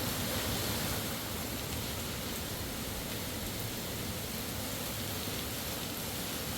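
Underground waterfall in an abandoned mine: a steady, even rush of falling water.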